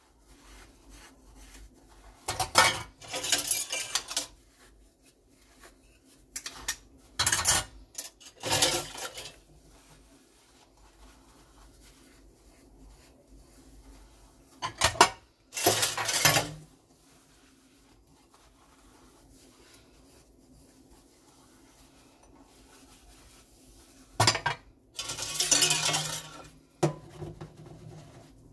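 Dishes being washed by hand in a stainless steel sink: ceramic bowls, stainless steel pots and cutlery clatter and clink against each other, in four short bursts with quieter stretches between.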